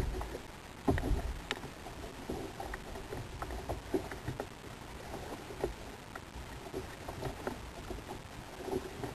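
Small kayak rocking at sea, water slapping and knocking against its hull, with scattered light clicks and a dull thump right at the start and another about a second in.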